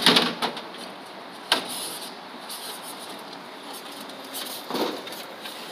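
Vending machine's push-flap delivery door knocked about as a hand reaches in for the dispensed containers: a clatter at the start, a sharp knock about a second and a half in, and a softer rustle near the end, over steady background noise.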